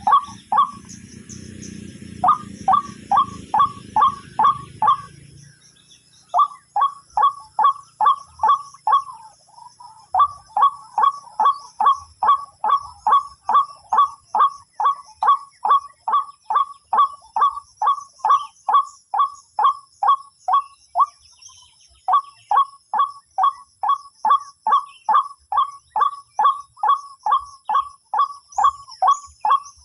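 White-breasted waterhen (ruak-ruak) calling: a fast run of harsh, repeated notes, about three a second, in long series broken by short pauses. A low rumbling noise lies under the calls for the first five seconds.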